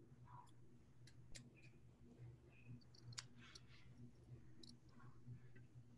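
Near silence: low room tone with a scattering of faint, short clicks.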